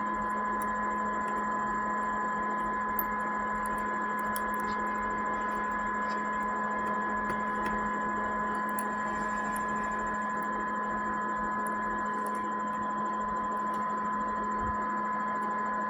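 Steady electrical hum and hiss with a few fixed tones, holding unchanged throughout, with a faint tick about three seconds in.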